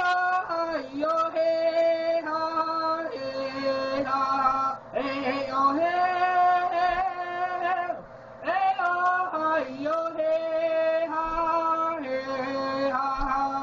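A single voice singing unaccompanied, holding long steady notes in phrases of a few seconds with short breaks for breath.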